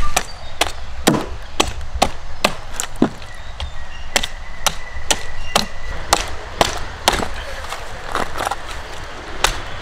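A knife chopping repeatedly into a large sailfish while it is cut up, with sharp, even strokes about two a second.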